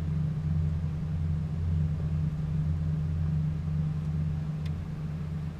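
Steady low motor drone with a slight pulse, carrying on without a break.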